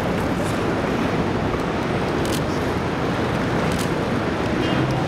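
Steady urban traffic din, a continuous low rumble of road noise with no distinct vehicle standing out, and a couple of faint clicks midway.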